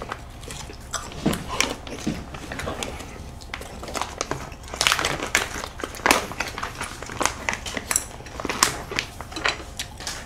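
Close-up eating sounds: chewing and mouth clicks, with scattered light taps of chopsticks and spoons on bowls.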